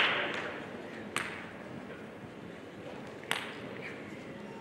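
Two single sharp clicks of a celluloid-type table tennis ball striking the bat or table, about two seconds apart, each with a brief ring.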